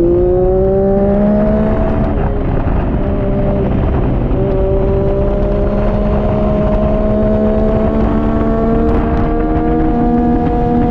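Triumph Daytona 675R's three-cylinder engine heard from on board at speed under throttle. Its pitch climbs, there is an upshift about two to four seconds in, and then the pitch rises slowly and steadily through the higher gear, with wind rushing over the bike.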